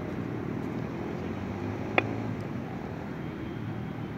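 A cricket bat striking the ball once, a sharp crack with a short ring about two seconds in, over a steady low outdoor rumble.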